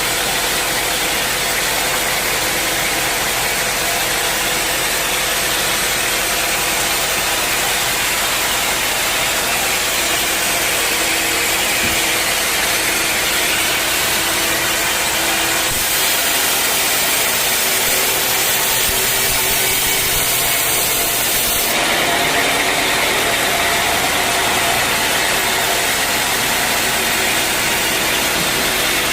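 Sawmill saw running through a teak log, a loud steady mechanical noise whose tone shifts about sixteen seconds in and again about twenty-two seconds in.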